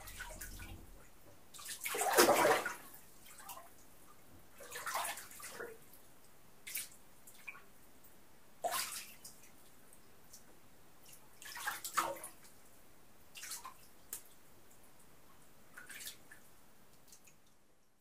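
Water splashing in a bathtub as a person moves about in it: separate splashes every few seconds, the loudest about two seconds in, with faint drips between.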